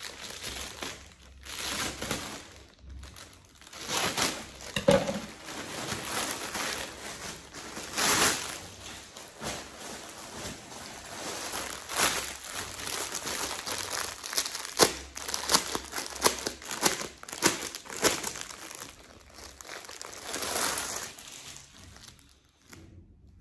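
Plastic packaging crinkling as it is handled and opened, in irregular bursts with louder crackles every few seconds.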